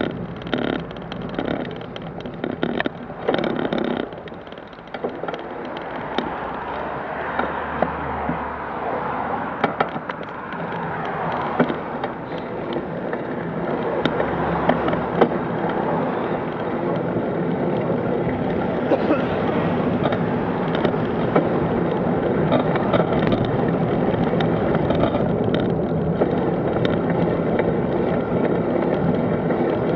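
Wheels rolling and rattling over a rough woodland track, with a run of knocks and jolts in the first few seconds. Then steady road noise: tyres on tarmac, with cars and vans passing close by.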